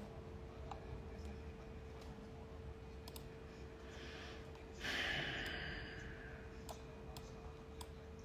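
Scattered mouse clicks as lines are drawn on a chart, over a faint steady hum, with a breathy sigh close to the microphone about five seconds in.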